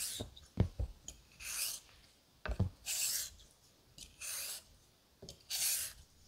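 Straight razor blade sliding across a wet Naniwa 1000-grit waterstone in X strokes: four scraping hisses about a second and a half apart, with soft knocks between strokes.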